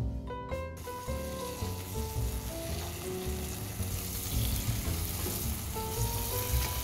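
Marinated chicken fillets sizzling in hot oil in a frying pan as they are laid in; the sizzle starts just under a second in and carries on steadily. Light background music plays underneath.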